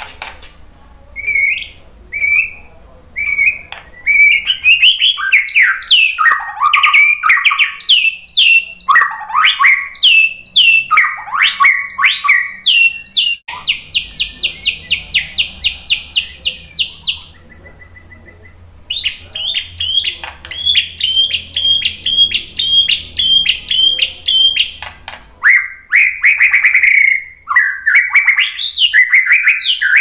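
White-rumped shama (murai batu) singing a loud, varied song of sliding whistled phrases, broken partway through by a fast run of evenly repeated notes and, after a short pause, a second run of repeated notes.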